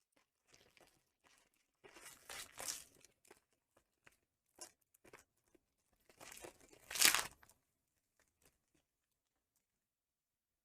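Foil booster pack wrapper of Pokémon trading cards being torn open, in two tearing rustles: one about two seconds in and a louder one a little past the middle, with light crinkling and handling between them.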